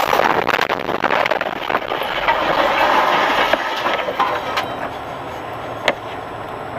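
Vehicle road noise with a continual clatter of small knocks and clicks, and one sharper knock near the end.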